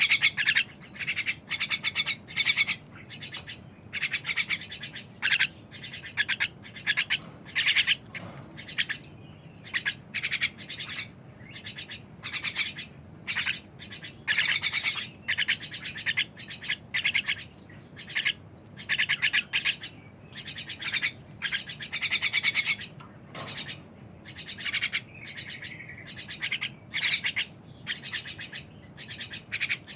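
A bird calling again and again in short, high, rapidly pulsed trills, each about half a second long, coming roughly once a second.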